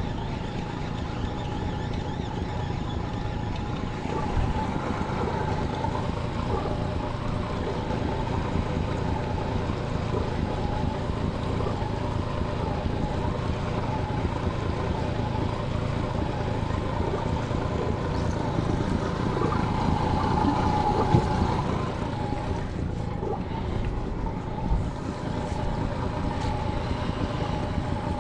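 Honda 30 hp four-stroke outboard motor running steadily at trolling speed, its tone wavering slightly, with wind and water noise. A single brief knock comes about three-quarters of the way through.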